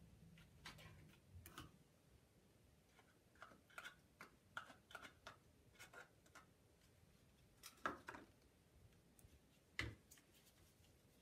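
Faint, scattered clicks and taps of small plastic applesauce cups being handled and emptied into a mixing bowl, with two sharper knocks later on.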